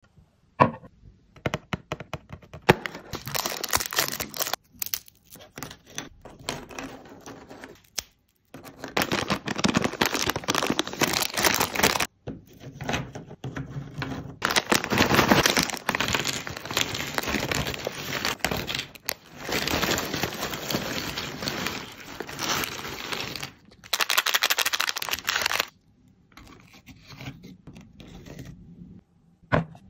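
Crinkling, rustling and light clattering of dry snacks (breadsticks, dried bagel rings, crackers and cookies) being handled and laid onto a bamboo serving platter. It comes in bursts of a few seconds with short pauses, with a few sharp clicks in the first few seconds.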